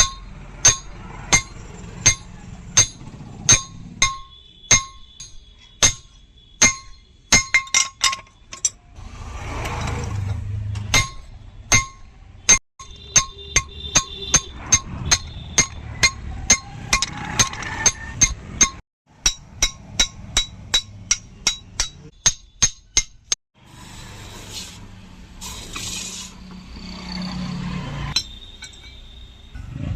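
Hand hammer striking steel on an anvil in repeated blows with a metallic ring, about one and a half blows a second at first and faster runs later, broken by a few sudden cuts.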